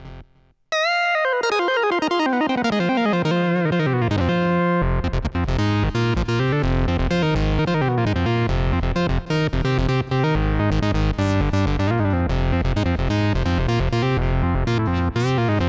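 Arturia PolyBrute analog polyphonic synthesizer playing: after a short pause, a bright sound enters under a second in, its pitch gliding steadily down over about four seconds. Then a busy rhythmic sequenced pattern with deep bass takes over.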